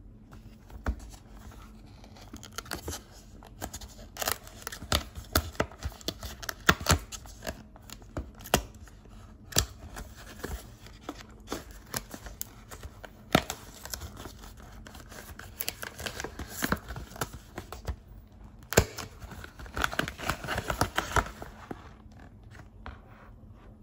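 Cardboard pizza box handled and torn open by hand: a long run of sharp crackles, taps and scrapes of card, coming in bunches.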